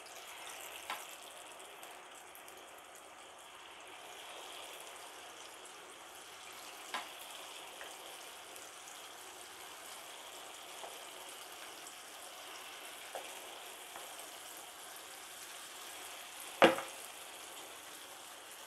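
Sweet appam batter sizzling steadily in hot oil in the wells of an appam pan as spoonfuls are poured in. A few light clicks sound throughout, and one sharp knock comes near the end.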